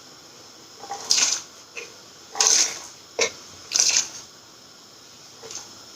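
Thinly sliced potatoes being tipped into a pan of boiling water, in four short rustling bursts about a second and a half apart, with a sharp click near the middle.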